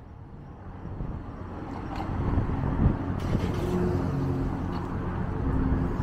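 Street traffic: a motor vehicle's low engine and road rumble growing louder about a second in, then holding steady as it passes close by.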